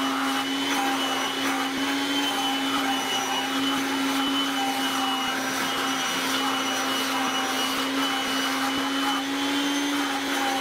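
A small electric motor running steadily: a constant hum over an even hiss of air.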